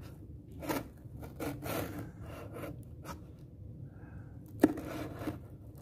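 Gerber Paraframe Mini folding knife blade slicing through packing tape along the edge of a cardboard box: a few short scraping strokes, with one sharp click about three-quarters of the way in.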